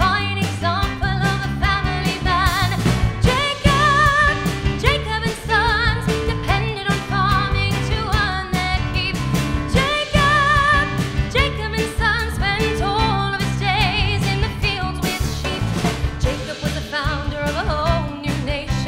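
A woman singing a musical-theatre number into a microphone, holding notes with a wide vibrato, backed by a live band with drums and bass keeping a steady beat.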